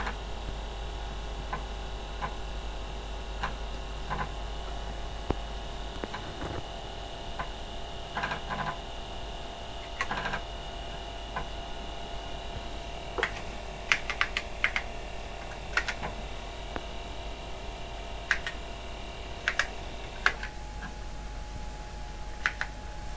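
Floppy disk drives of an Osborne OCC1 computer booting from one disk and then working a second one: irregular single clicks and short clicking clusters from the drive heads stepping, over a steady whine. The whine changes about twenty seconds in, as activity moves from drive A to drive B.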